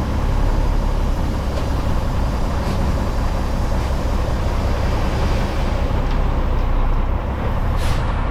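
Freightliner truck's diesel engine running steadily while driving, with a short hiss of air brakes near the end.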